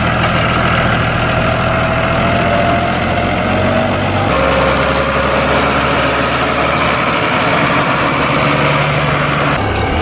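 New Holland 8160 tractor's diesel engine running steadily while it pushes chopped maize silage with a front leveller blade. The engine note changes abruptly about four seconds in.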